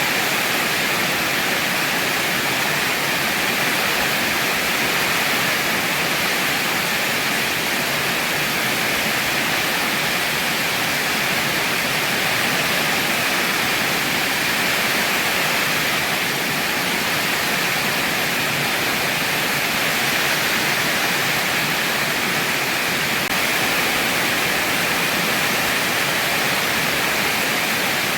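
Heavy rain falling steadily, a continuous even hiss with no breaks or single drops standing out.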